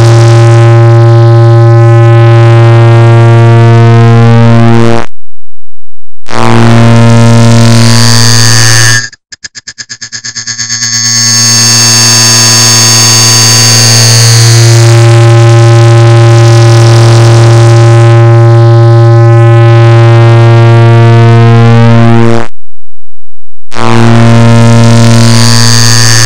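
Clock-tick sound digitally stacked and sped up until the ticks merge into a loud, distorted buzzing drone with a strong low hum. It cuts out for about a second twice, and about nine seconds in it breaks into rapid clicks that quicken back into the drone.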